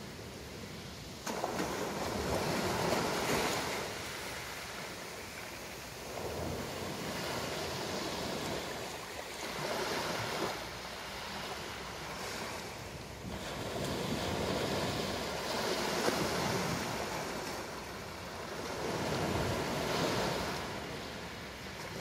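Small waves breaking and washing up a pebbly beach, the surf swelling and fading every few seconds as each wave comes in and draws back. The sound jumps up suddenly a little over a second in.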